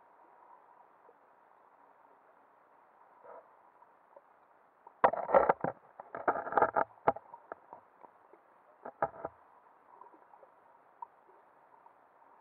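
Action camera recording underwater: a faint, muffled hiss broken by clusters of knocks and clatter, about five seconds in, again about six seconds in, and briefly about nine seconds in.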